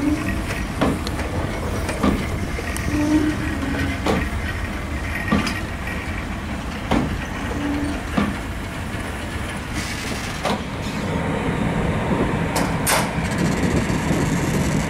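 ET22 and ET42 electric locomotives rolling slowly while shunting: their wheels knock over rail joints about once a second over a steady low rumble.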